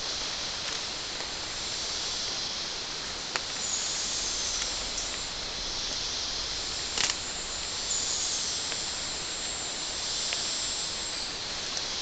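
Rainforest ambience: a steady high hiss of insects, with a few sharp snaps, the loudest about seven seconds in.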